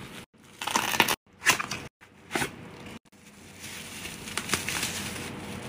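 Packaging crunching and crackling as hands squeeze it. It comes in several short bursts for the first two and a half seconds, then turns to a steadier crackling rustle as the material is pulled apart.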